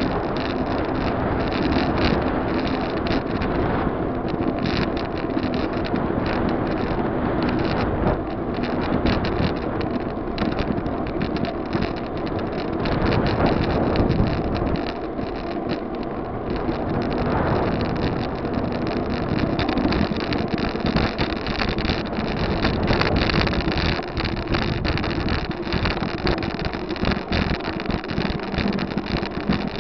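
Wind buffeting the microphone of a camera mounted on a moving bicycle, a loud, continuous rough rumble with constant rattling and road noise underneath.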